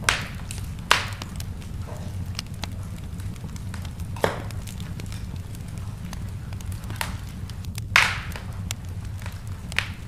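Wood fire burning in a fireplace, crackling with irregular sharp pops over a steady low rumble; the loudest pop comes about eight seconds in.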